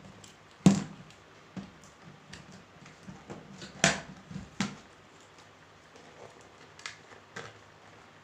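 Hard plastic panels of a plastic cabinet knocking and clacking as a door panel is handled and fitted onto the frame: a sharp knock about a second in, two more near the middle, and a few lighter taps.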